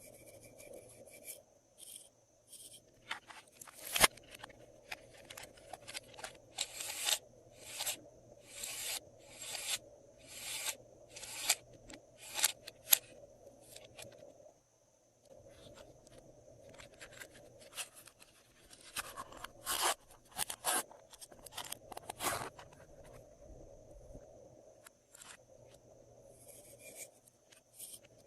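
Glossy slime being worked by hand: a long run of short sticky crackles and squishes, about two a second at the busiest, with a brief pause about halfway.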